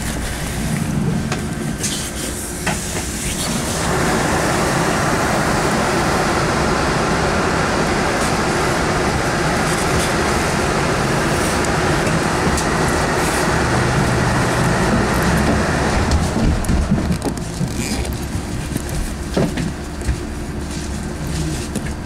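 Cabin noise of a KAMAZ-6282 electric bus on the move: a steady low rumble with scattered rattles and clicks. A louder, even noise joins from about four seconds in and stops at about sixteen seconds.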